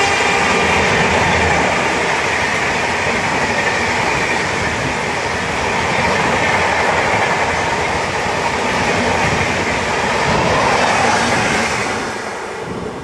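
The Shatabdi Express's LHB coaches rushing past on the adjacent track, heard from aboard another train: a loud, steady rush of wheel and air noise with wheels clattering. The noise falls away near the end as the last coach goes by.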